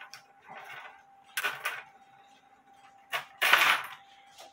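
Metal snips cutting through a steel clock mainspring: a few sharp metallic cuts, the loudest about three and a half seconds in.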